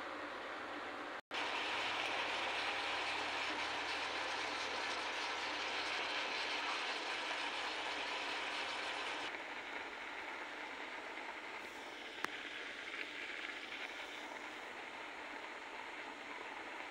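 Vegetables sizzling and crackling in a cooking pot, a steady hiss that drops a little in level about nine seconds in, with one sharp tap about twelve seconds in.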